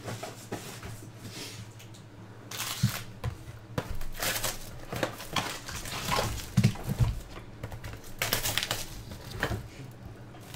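Foil-wrapped pack of trading cards crinkling and rustling as hands pull it out of its cardboard box, in irregular bursts.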